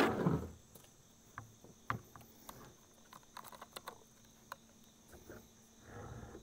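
Small scattered clicks and ticks of hands handling a chainsaw and unscrewing its plastic fuel cap, after a brief rush of noise at the very start. Crickets chirp steadily in the background.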